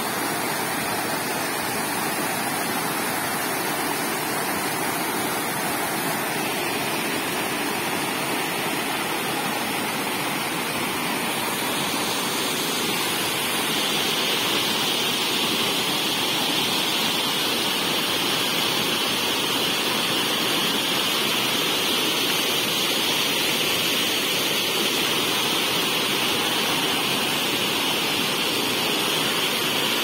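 White water rushing steadily down a rocky cascade in a fast-flowing stream, a constant even rush of water that grows a little louder and brighter about halfway through.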